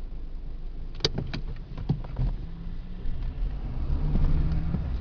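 Car engine running, heard inside the cabin, with a few sharp clicks about a second in; the low engine sound grows louder in the second half.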